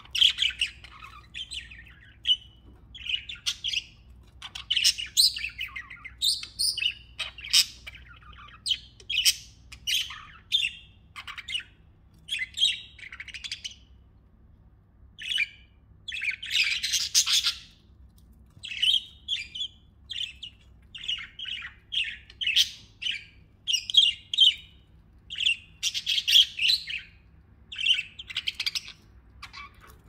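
Several pet budgerigars chirping and warbling in quick runs of short calls with brief pauses between them, with one longer, louder stretch of chatter about halfway through.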